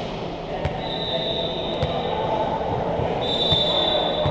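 Volleyball bounced a few times on a hard indoor court floor, over the chatter of a crowd in a large hall. A steady high whistle tone sounds twice, about a second each.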